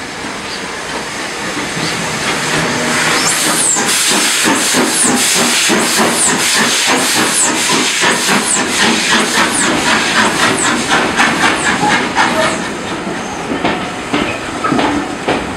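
Steam locomotive hissing steam and chuffing in an even beat as it works. The chuffs build up over the first few seconds and ease off near the end.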